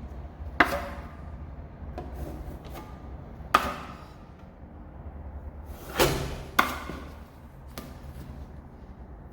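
Five sharp clicks and knocks with a brief ring, one to three seconds apart, from a putty knife working lightweight putty on a door, over a steady low hum.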